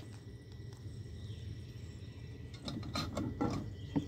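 Camp cookware being handled: a sharp click at the start, then a cluster of light clacks and rattles about two and a half to four seconds in.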